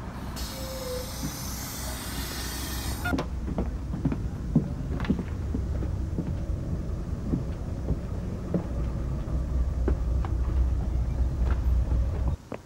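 A school bus's engine running with a steady low rumble that grows louder in the last few seconds. In the first three seconds there is a hiss of air. After that come scattered knocks and footsteps as someone climbs aboard and sits down.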